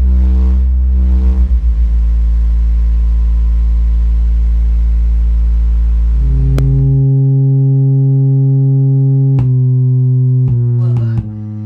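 Synthesizer music: held electronic tones over a very deep bass drone, pulsing for the first second or so and then steady. The bass drops out about seven seconds in, and the held chords change several times near the end.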